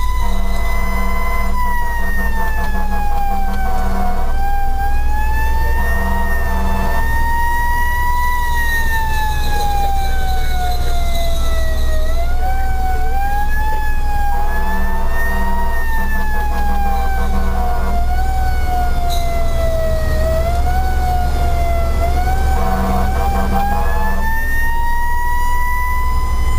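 Fire engine siren wailing, its pitch sweeping slowly up and down, with four stretches of short, repeated horn blasts, heard from inside the moving truck's cab over a steady low engine and road rumble.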